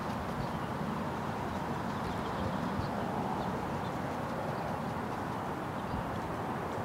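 Steady low outdoor background rumble, with faint, short, high chirps of distant small birds scattered through it.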